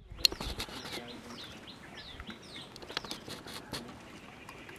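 A Bengal tiger lapping water, heard as sharp wet clicks, the loudest about a quarter-second in. Birds call over it, a run of short chirps sliding downward in pitch, repeating through the first half.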